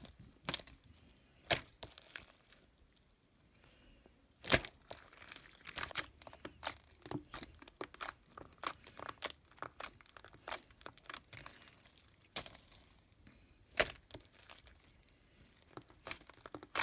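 Crunchy slime being squeezed and pressed by hand, giving off a run of irregular sharp crackles and pops, with a few louder snaps.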